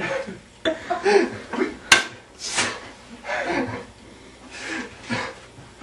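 Short bursts of indistinct voices and laughter with rustling movement, and one sharp knock about two seconds in.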